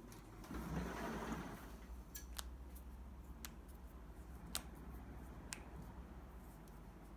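A brief rustle of movement, then a handful of sharp, faint clicks at irregular intervals, roughly a second apart.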